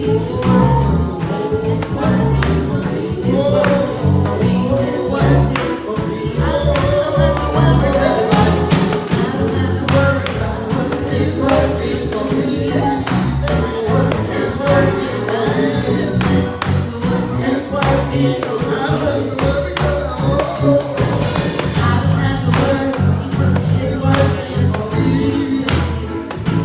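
Gospel praise music with a tambourine shaking on a steady beat over heavy bass, with voices singing.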